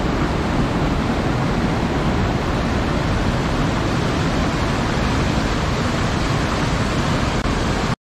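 Water from a small waterfall and fast river current rushing into a rocky pool: a loud, steady rush of water that cuts off abruptly at the end.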